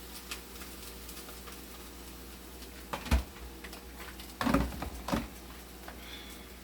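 Light crackling of hot oil in a frying pan with ackee just added, with a few knocks of a utensil against the pan about three, four and a half and five seconds in.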